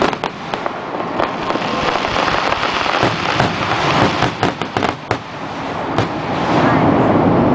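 Aerial fireworks bursting overhead: a run of sharp bangs over a dense, steady crackle, growing thicker and louder near the end.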